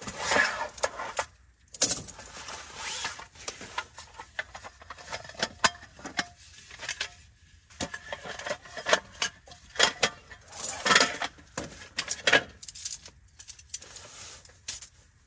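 Irregular handling noise: rustling and swishing mixed with sharp clicks and clinks, as of camping gear being moved and set down, with the busiest stretch about two-thirds of the way in.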